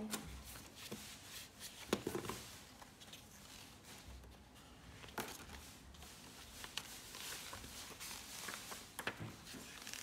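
Quiet paper rustling and crinkling as an envelope and printed instruction sheets are pulled out and handled over a cardboard box, with a few sharp clicks scattered through it.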